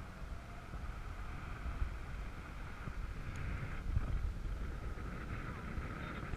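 Wind buffeting the camera's microphone while it hangs high on a parasail: an uneven low rumble with a steady faint hiss above it.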